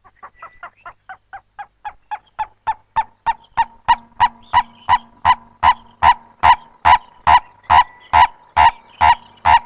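Purple-crested turaco (lourie) giving its raucous call: a long series of about thirty croaking notes. The notes start soft and quick, then build steadily louder and a little slower.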